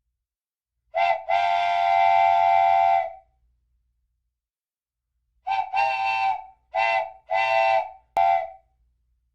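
A chime-style train whistle toots, several notes sounding together at a steady pitch. There is a short toot, then a long toot of about two seconds, a pause, and then a run of five short toots.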